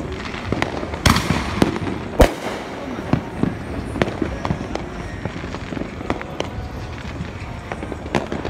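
Fireworks going off in a rapid, irregular series of bangs and pops. The two loudest bangs come about one and two seconds in.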